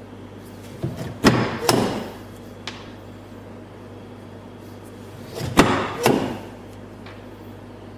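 Hand-lever time-fuse cutting machine splitting the end of a time fuse: two pairs of sharp metal clacks as the press comes down and returns, about a second in and again about five and a half seconds in.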